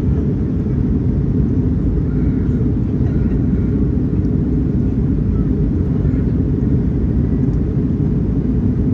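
Airbus A319-100 jet airliner giving a loud, steady low rumble that holds an even level throughout.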